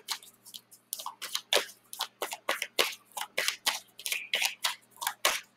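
A deck of tarot cards being shuffled overhand by hand: a quick, irregular run of short card slaps and flicks, about three or four a second.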